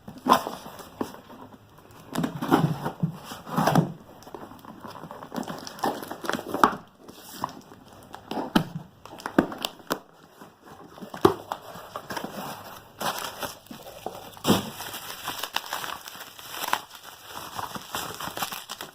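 Packaging being crinkled, rustled and torn open by hand in irregular bursts as a product is unwrapped.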